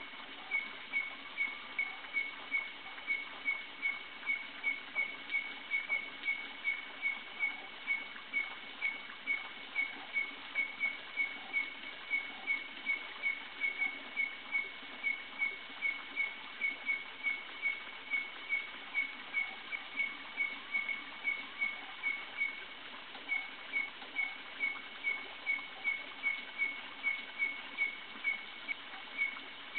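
A night-calling animal repeating one short, high chirp steadily, about two to three times a second, over a faint background chorus of other night sounds.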